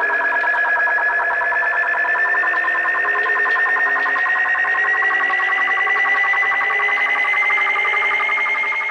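A warbling electronic tone with several overtones, rising slowly and steadily in pitch.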